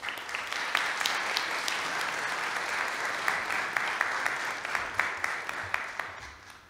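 Audience applauding: a dense patter of many hands clapping that starts at once and dies away near the end.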